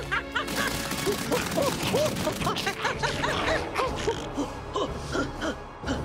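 Cartoon soundtrack: busy music full of short swooping pitch glides, with quick hits scattered through it.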